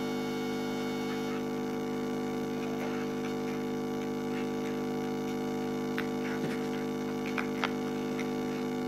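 A steady electrical mains hum with several tones. A few faint clicks of plastic toy building blocks being handled and pressed together come in the second half.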